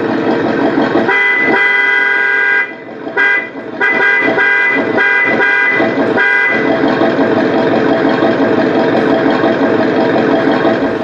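Horn-like honking in short repeated toots, about two a second, with a brief pause partway through. A steady dense sound carries on after the toots and cuts off suddenly at the end.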